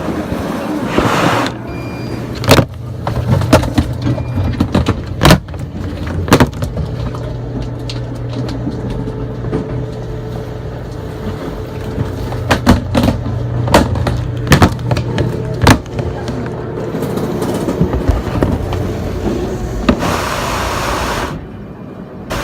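Airport security screening noise: a steady low machine hum with many sharp clacks and knocks, like trays and bags being handled, and a few short high beeps early on.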